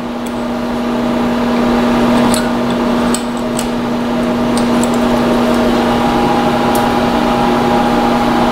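Steady electric-motor hum from shop machinery, with a few light metallic clicks as a pin punch is worked into a hole in the steel vise jaw to push a small burr out of the way.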